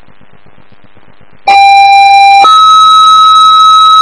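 Two-tone sequential pager alert sent over a fire dispatch radio channel and heard through a scanner: about a second and a half in, a loud lower tone sounds for about a second, then switches straight to a higher tone held steady. The tones set off the pagers of the fire investigators being paged.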